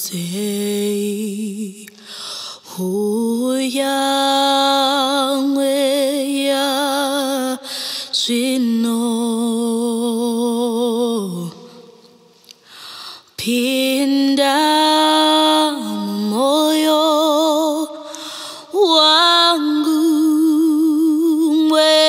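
A woman singing unaccompanied in Shona, holding long notes with a wide vibrato, with short breath breaks and one longer pause a little past halfway. She is recorded close on a Lauten Audio LA-220 FET condenser microphone.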